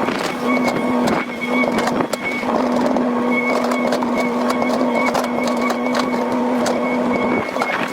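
Excavator running under load: a steady engine and hydraulic whine that briefly drops out now and then, with scattered knocks.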